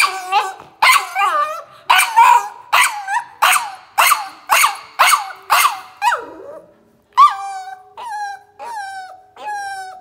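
American bully puppy barking steadily behind a closed door, about two sharp barks a second for the first six seconds. After a short pause it switches to longer, drawn-out yelps, each falling in pitch.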